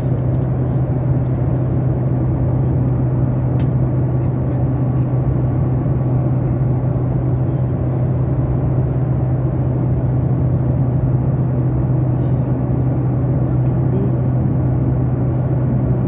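Steady airliner cabin noise heard from inside the cabin: the even rush and drone of the engines and airflow with a strong, constant low hum.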